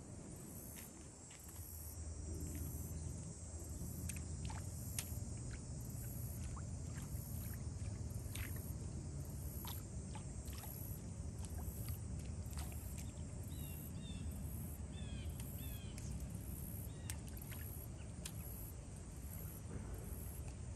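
Waterside ambience: a steady low rumble of wind and lapping water, with scattered faint clicks and a few short chirps about two-thirds of the way in.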